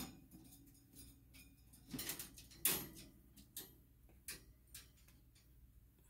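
Irregular clicks and light rattles of a wire cage as a small pet climbs the bars and ramp, its claws catching on the wire; the loudest knocks come about two to three seconds in.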